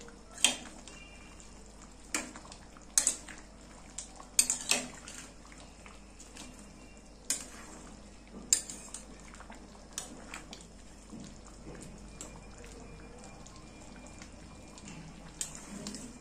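A stainless steel spatula clinking and scraping against a steel karahi while stirring a thick meat-and-lentil curry. The sharp clinks come irregularly every second or two, loudest in the first nine seconds and softer after, with quieter scraping between them.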